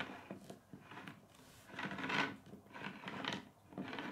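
Plastic K'nex model being handled on a wooden table top: its legs and joints rub, scrape and tap against the wood in an irregular run, loudest about two seconds in.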